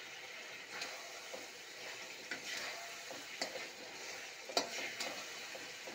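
Boiled eggs in a thick masala sizzling and frying in an iron kadhai, with a spatula stirring and knocking against the pan in several sharp clacks over the steady sizzle, the loudest a little past halfway.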